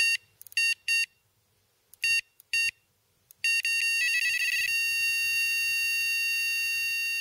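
Electronic neon-flicker sound effect: short high-pitched electronic beeps stutter on and off at irregular intervals. About three and a half seconds in they run together into a quick warble, then settle into a steady held high tone.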